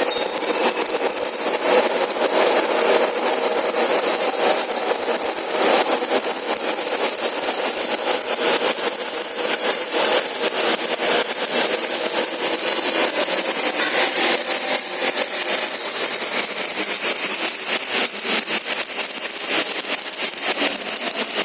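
Electric arc welding: a steady, dense crackling hiss of the arc that carries on without a break.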